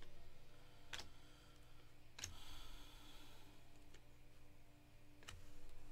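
Faint handling of trading cards and packs: a few sharp clicks, with a short rustle after the second one, over a low steady hum.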